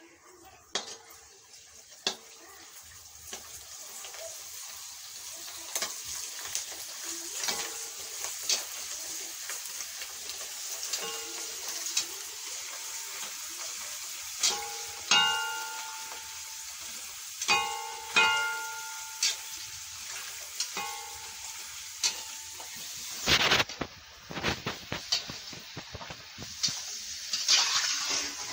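Puris deep-frying in hot oil in an iron kadai: a steady sizzle, with scattered sharp clinks and knocks of a metal slotted ladle against the pan.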